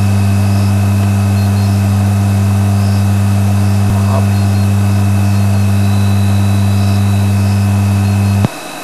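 Loud, steady low hum, unchanging in pitch, that cuts off abruptly near the end.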